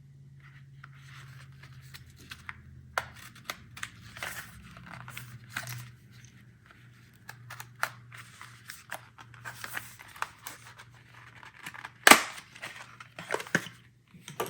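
Retail packaging of an M.2 SSD being opened and handled: scattered crinkles, tearing and small clicks, with one sharp snap about twelve seconds in.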